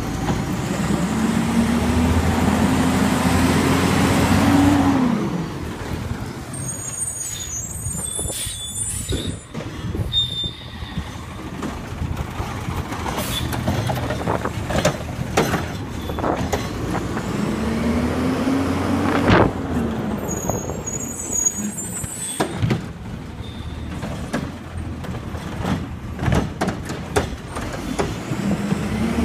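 Front-loader garbage truck with a Curotto-Can cart arm, its engine running with a pitched whine that rises and falls as it revs to drive the hydraulics: once near the start and again about two-thirds in. Sharp metallic clanks and knocks come throughout as the arm handles and empties carts.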